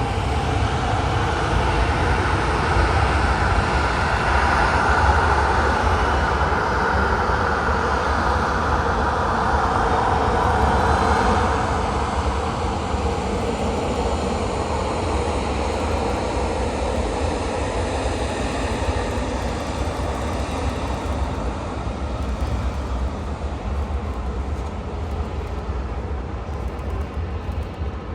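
Jet airliner engines roaring as the aircraft passes, swelling over the first ten seconds or so and then slowly fading away, with wind rumbling on the microphone throughout.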